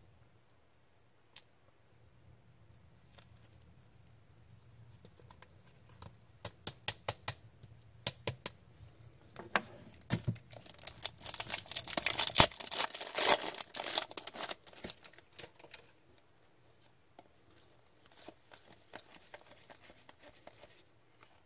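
Trading cards being handled: a run of light clicks and taps, then a few seconds of louder crinkling, tearing noise, followed by softer scattered ticks.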